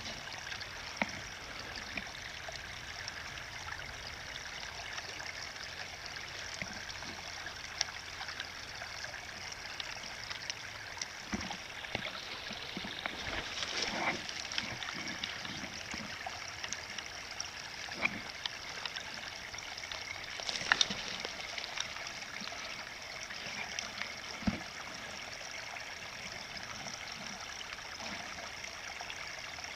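Steady hiss of running water from a small stream, with scattered sharp clicks and knocks now and then.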